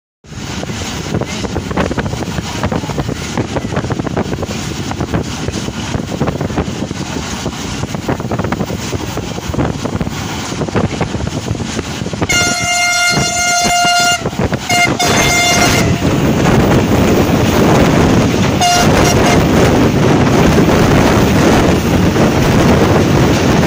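Train running at speed, heard from a passenger coach at an open window: a steady rumble of wheels on rails mixed with rushing wind, growing louder in the second half. About halfway through, the hauling AGE-30 diesel locomotive's horn sounds one long blast, then two shorter blasts, and a brief toot a few seconds later.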